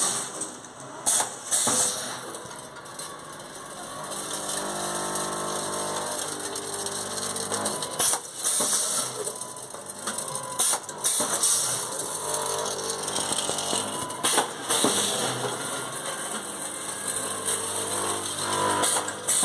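Automatic pouch packing machine with its weigher running: a steady mechanical hum broken by repeated clicks and clacks from its moving parts.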